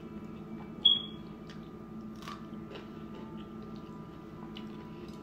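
Eating sounds: chewing and small scattered clicks of wooden chopsticks on a plate of spaghetti, over a steady low hum. A single short high-pitched beep or squeak about a second in is the loudest sound.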